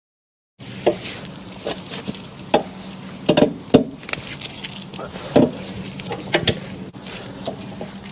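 Car jack being worked under the car to raise it: irregular metallic clicks and knocks, a few louder clanks in the middle, over a steady low hum. The sound cuts in about half a second in.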